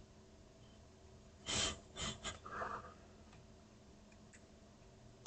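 A person's breath near the microphone: a short sharp exhale or sniff about a second and a half in, followed by a few fainter breath sounds, over a faint steady hum.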